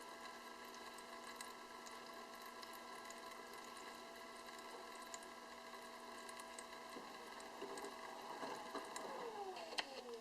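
Sharp drum washing machine washing: a steady hum from its water-recirculation pump motor over faint sloshing water. Near the end the motor tones fall in pitch as it slows, with a sharp click.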